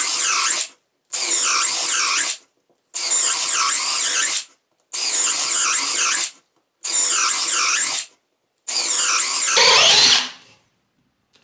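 Parkside Performance PBSPA 12 B2 12-volt brushless cordless drill boring hole after hole. It gives about six short bursts of drilling, each a second or so long, with brief pauses between them; the last burst runs longer and turns heavier toward its end.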